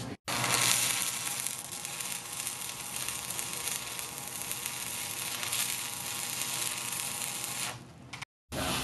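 Electric arc welding on a motor's broken bottom plate: a steady sizzling hiss that runs for about seven and a half seconds, then fades and stops. There are short drop-outs to silence just after the start and near the end.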